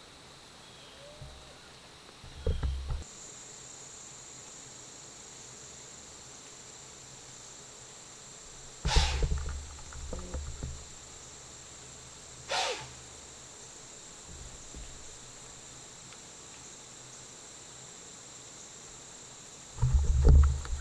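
White-tailed doe blowing: a loud, sharp alarm snort about nine seconds in and another about three and a half seconds later. This is the alarm a deer gives when it has scented or spotted a hunter. A steady high insect drone runs underneath, and dull thumps come near the start and near the end.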